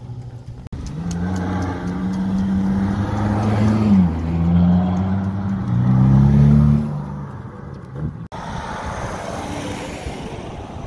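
Ferrari F8 Tributo's twin-turbo V8 accelerating, its pitch rising, dropping sharply partway through, then climbing again to the loudest rev. Near the end it gives way to a quieter, steady engine sound.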